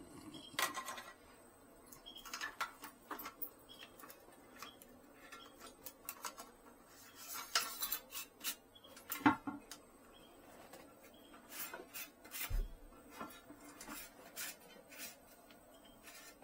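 Irregular clicks, clinks and knocks of a new toilet flush valve and its parts being handled and fitted into the toilet tank, with a sharper knock about nine seconds in and a dull thud a few seconds later.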